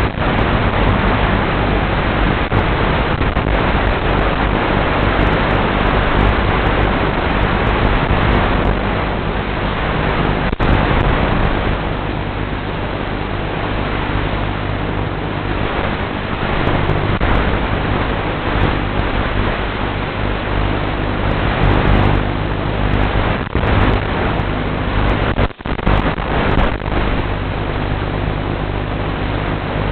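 Steady static hiss from an analog 5.8 GHz FPV video link's audio, with a low steady hum under it. Brief crackles and dropouts break it up, the deepest about three quarters of the way through.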